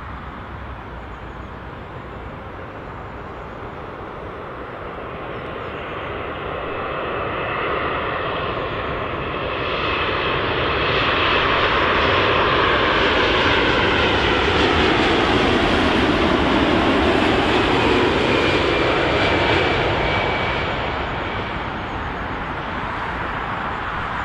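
Boeing 787-9 airliner on final approach passing low overhead, its GEnx turbofan engines at approach power. The jet noise swells to a loud peak about halfway through, with a whine sliding down in pitch as the aircraft passes, then eases off as it goes by.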